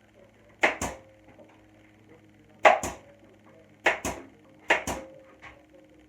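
Sharp knocks in quick pairs, two hits close together each time, four pairs over a few seconds.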